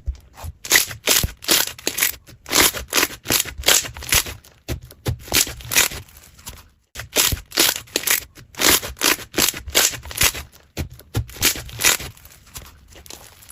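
Slime being squeezed and worked by hand, a quick run of short squishing, crackling sounds, about two to three a second, with a brief gap about seven seconds in.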